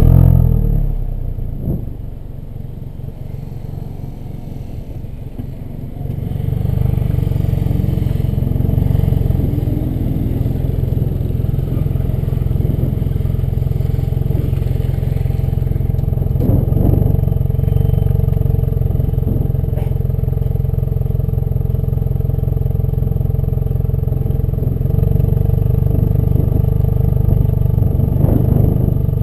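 Kia Cerato Koup's stock exhaust at the tailpipe: the engine flares loudly right at the start and settles to a quieter idle. About six seconds in the exhaust note rises as the car pulls away, then runs steadily while cruising.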